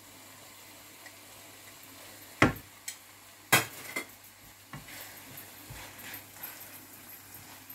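Diced carrots tipped into a ceramic-coated sauté pan of frying vegetables, with two sharp knocks about two and a half and three and a half seconds in, then a slotted spatula stirring the mixture with light scraping and clicking over a low sizzle.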